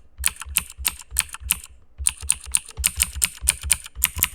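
Fast typing on a computer keyboard, each keystroke played back by the Mechvibes app as a crisp clicky mechanical-switch sound from its Cherry MX Blue pack. It comes in two runs of about six keystrokes a second, with a short pause about one and a half seconds in.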